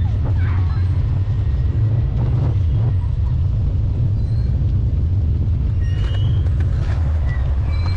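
Steady low wind rumble on the microphone of a camera carried on a moving bicycle, mixed with the tyres rolling on pavement.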